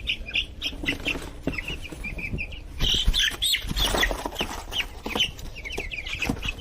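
A crowd of Cornish Cross broiler chicks peeping continuously, many short, high, falling peeps overlapping. Rustling and knocks run among them, loudest about three seconds in.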